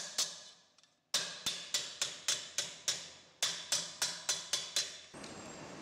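Hammer blows on a thin rolled sheet-metal tube held over a steel bar in a vise, sharp ringing strikes in quick runs of about three a second with short pauses, as the perforated central air shaft of a gasification stove is shaped. The hammering stops about five seconds in.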